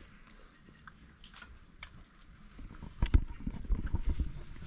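A few faint clinks of plates and cups at a meal, then, from about three seconds in, a run of loud low thumps and rumbling from the camera being handled and swung around.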